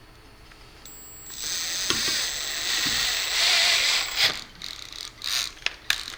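A drill-driven tap cuts threads in a metal camera housing: a ratcheting, grinding whirr starts about a second in and runs for about three seconds, followed by a few light knocks.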